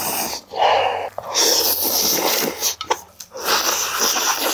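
A man slurping spicy seafood ramen noodles, several long, loud slurps one after another.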